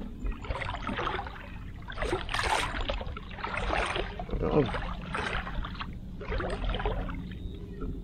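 Water splashing and sloshing in repeated bursts, about one a second, as someone wades through shallow water working a long-handled scoop net, over a low steady hum.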